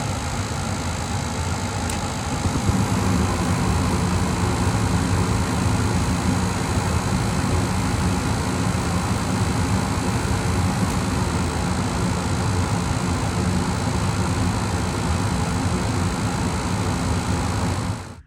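Gas furnace running: a steady mechanical hum that grows louder about two and a half seconds in, then cuts off suddenly near the end.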